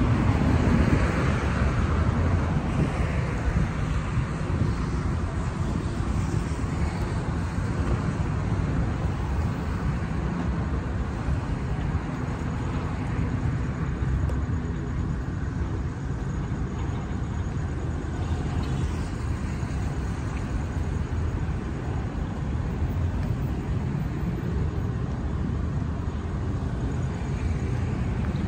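Steady road traffic: cars passing, loudest in the first few seconds as one goes by, then settling into an even rumble.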